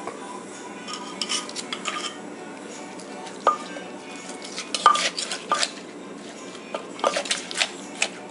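Wooden pestle knocking and a metal spoon scraping and clinking in a mortar as the papaya salad dressing is pounded and mixed: irregular knocks, a few with a short bright ring, coming thicker near the end.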